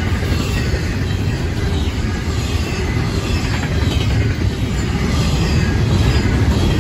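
Union Pacific double-stack intermodal train's well cars rolling past, a steady loud rumble of steel wheels on the rails.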